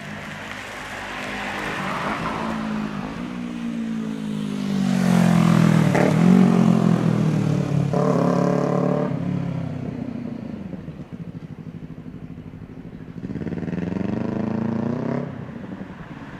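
Several vehicles pass one after another, each engine note rising and then falling in pitch as it goes by. The loudest pass comes about a third of the way in; the last one cuts off near the end.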